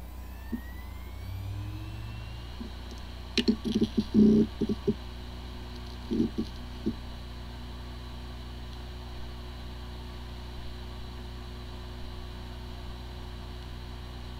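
Hard drive with corrupted disk firmware running: a rising whine over the first couple of seconds, a cluster of sharp clicks about four seconds in and a few more about six seconds in, then a steady spinning hum. The drive spins fine but cannot be accessed by any computer, the symptom of disk firmware corruption.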